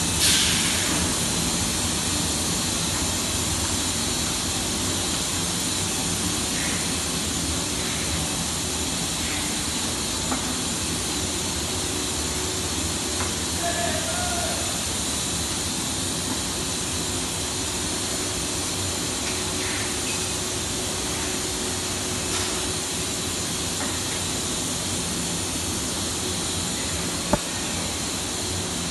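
Steady running noise of a PVC ceiling-panel extrusion line: motors and fans make a constant hiss and hum with a thin, steady high whine over it. A brief rush of hiss comes right at the start, and a single sharp click comes near the end.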